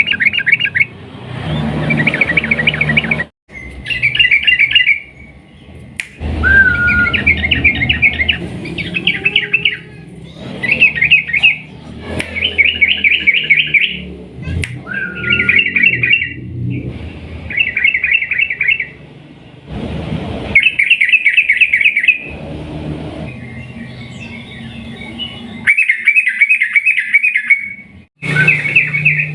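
Yellow-vented bulbul (trucukan) singing a series of rapid, chattering trilled phrases, each about a second long with short pauses between. A low background rumble comes and goes under several of them.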